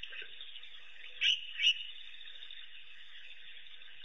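Two short, high chirping animal calls about half a second apart, over a steady high-pitched background chorus.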